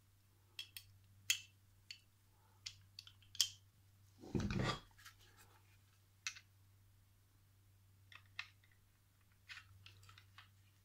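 Light clicks and taps of a Heckler & Koch P30 pistol's steel slide, recoil spring guide rod and polymer frame being handled and fitted together during reassembly, the slide going onto the frame's rails. One louder half-second noise about four seconds in.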